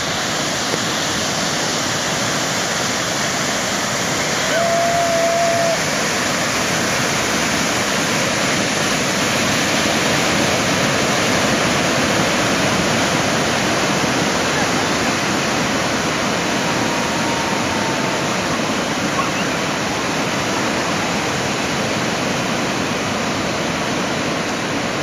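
Tidal bore on the Dordogne sweeping up the river: a steady, loud rushing of churning, breaking water. A short, high, steady tone sounds briefly about five seconds in.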